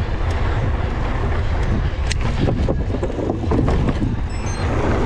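Wind buffeting the camera microphone on a mountain bike riding fast over a dirt track, with tyre noise and several sharp clicks and rattles from the bike over bumps.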